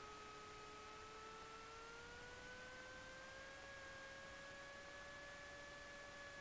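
Near silence with a faint, steady electrical whine in two tones. It rises a little in pitch about two seconds in, holds, and eases back down near the end.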